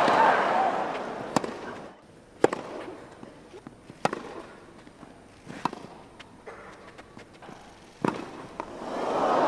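Tennis rally: sharp ball strikes on racquets about every one and a half seconds, with fainter ticks between them. Crowd noise fades out over the first two seconds and swells again near the end.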